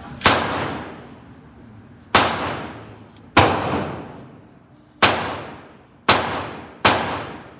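Six pistol shots fired from another lane of an indoor shooting range, irregularly spaced, each with a long echoing tail off the range walls.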